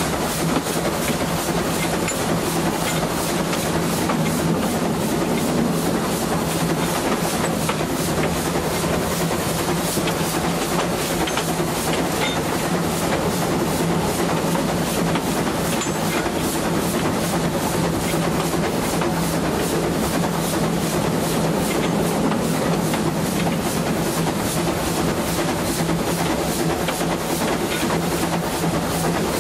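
Narrow-gauge train hauled by an ÖBB class 298 steam locomotive, heard riding along on board: steady running noise with a quick, even, regular beat.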